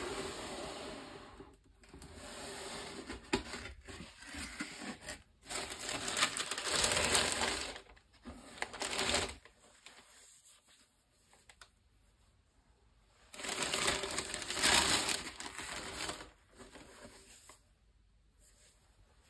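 Tissue paper crinkling and a cardboard shoebox being handled with gloved hands, the sneaker shifted about inside it. The rustling comes in bursts, with a quieter spell around the middle.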